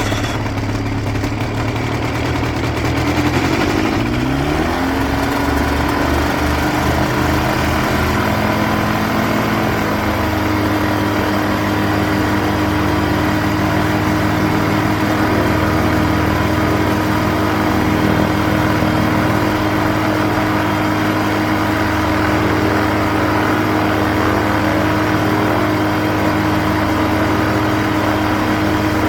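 Quicksilver ultralight aircraft's two-stroke engine running just after a cold start after the winter. Its pitch rises over the first few seconds, then it settles to a steady run.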